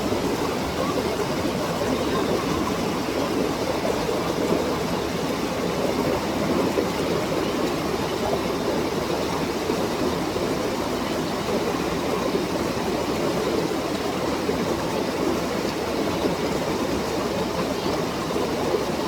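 Stream running: a steady, unbroken rush of flowing water.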